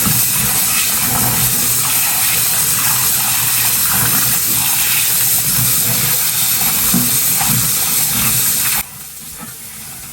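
Kitchen tap running hard as canned chickpeas are rinsed under it. The water shuts off suddenly near the end.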